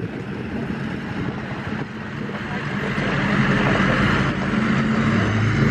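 A vehicle engine running steadily at idle, a low even hum that gets louder about three seconds in, over a steady hiss.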